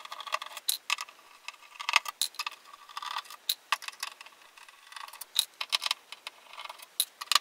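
Phillips screwdriver backing small screws out of a turntable's plastic bottom cover: irregular small clicks and ticks, with the little metal screws rattling as they are dropped into a cup.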